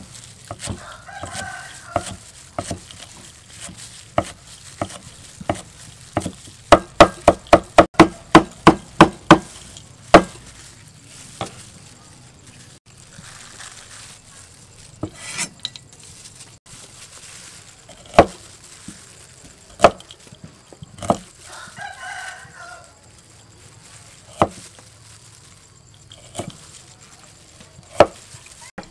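Cleaver chopping on a thick wooden chopping block: scattered single chops, then a quick run of about a dozen chops at roughly four a second about seven seconds in, then more single chops. A rooster crows in the background twice, near the start and again about two thirds of the way through.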